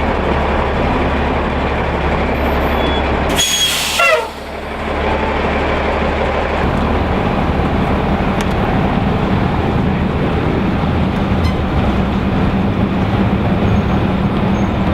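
Heavy vehicle or machine engine running steadily, with a short, loud hiss about three and a half seconds in.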